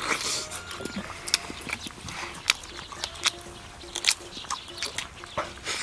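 Wet chewing and lip-smacking as a man gnaws braised meat off a big bone, a string of short sharp smacks and sucking clicks.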